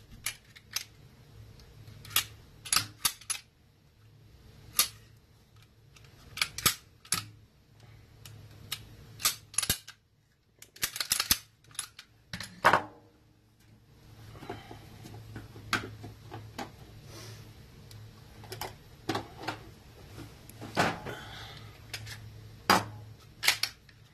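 Sharp clicks and clacks of semi-automatic pistols being handled: a slide worked and taken off its frame, and parts set down on a workbench. The clicks come irregularly, thickest around the middle.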